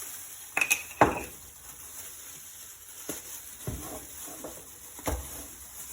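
Food sizzling on a barbecue grill, with a few sharp knocks and clinks of utensils. One rings briefly about half a second in, and the loudest knock comes about a second in.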